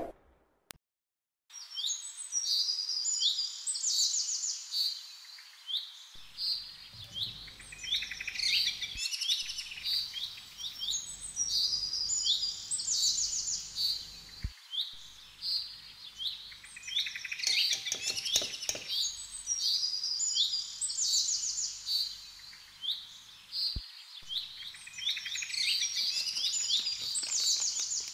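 Small birds chirping and singing: quick runs of short, high chirps that come in spells every few seconds.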